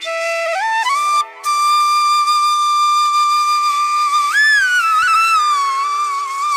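Background music: a single slow melody line that holds long notes and slides up and down between them.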